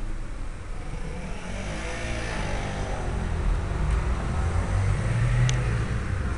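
A motor vehicle's engine running, growing louder through the middle and easing off near the end, with a brief high squeak about five and a half seconds in.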